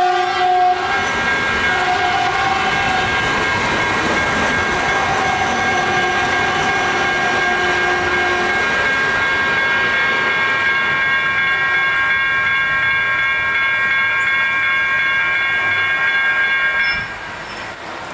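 Caltrain commuter train passing through a grade crossing, its horn sounding in several blasts during the first half. Electronic crossing bells ring steadily over the train noise until everything drops away about a second before the end.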